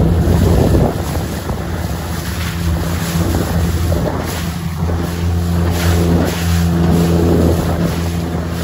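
Small tender boat's outboard motor running steadily at speed, with water rushing along the hull and wind buffeting the microphone.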